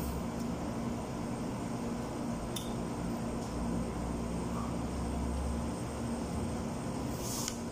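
Steady mechanical room hum, like a running fan, with two brief faint clicks, one a few seconds in and one near the end.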